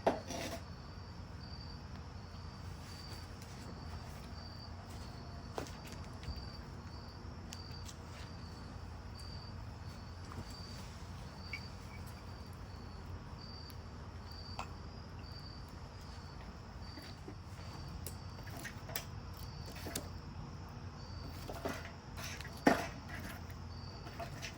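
A cricket chirping in a steady, even rhythm over a low hum, with scattered light clicks and one sharper knock near the end.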